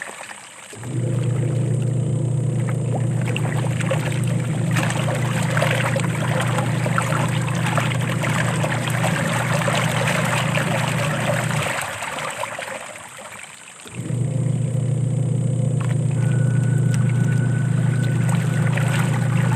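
Washing machine running: a steady low motor hum over the sound of running, trickling water. The hum cuts out about 12 seconds in and starts again about two seconds later.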